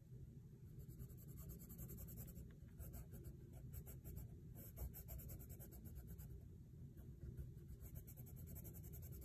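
Coloured pencil scratching faintly on paper in rapid back-and-forth shading strokes.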